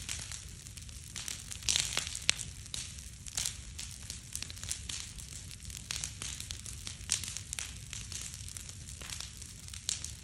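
Teepee-stacked wood bonfire crackling, with frequent sharp pops and snaps over a low steady rumble; the loudest pops come about two seconds in.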